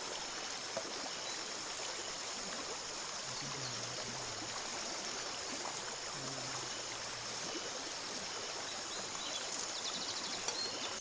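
Steady rushing of a flowing river, an even wash of water noise that holds at one level throughout.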